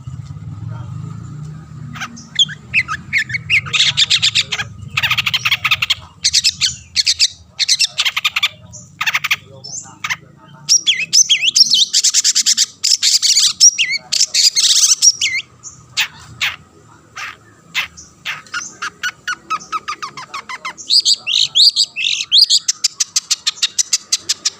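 Long-tailed shrike (cendet) singing in full voice: bouts of rapid, dense chattering phrases broken by short pauses.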